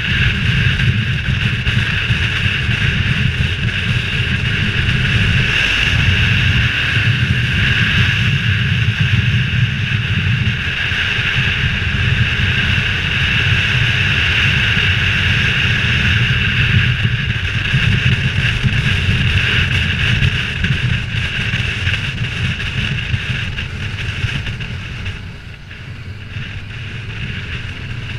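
Motorcycle ridden at road speed, heard from a helmet camera: a steady rush of wind over the microphone with the engine and tyre noise underneath. It gets quieter about 25 seconds in as the bike slows into a bend.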